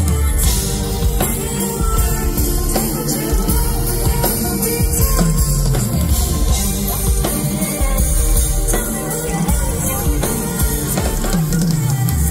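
Live band playing loud pop music with a drum kit and a heavy, pulsing bass.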